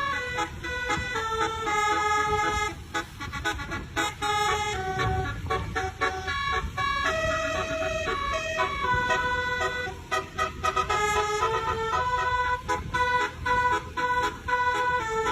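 Basuri telolet multi-tone horn playing a melody: a quick run of held, stepped notes that change pitch several times a second, over a low rumble.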